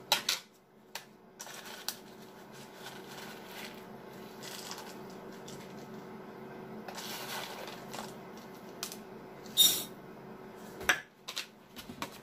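Hulled sunflower seeds rustling and rattling as they are measured out of a plastic tub and poured into a glass mixing bowl, with one short, louder rattle about three-quarters of the way through. A few light knocks near the end as the cup and tub are set down.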